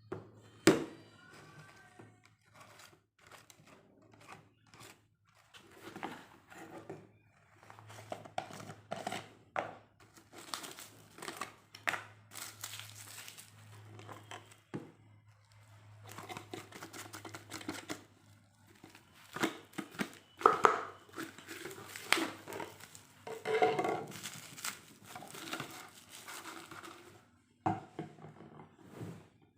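Product packaging being opened by hand: irregular crinkling and rustling of wrapping, with tearing sounds and a few sharp knocks.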